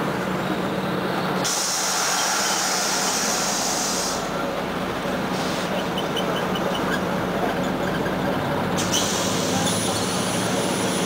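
Cabin sound of a Scania CN94UA OmniCity articulated bus: the engine runs with a steady hum, and compressed air hisses loudly from the bus's air system about a second and a half in for a couple of seconds, briefly again mid-way, and once more near the end.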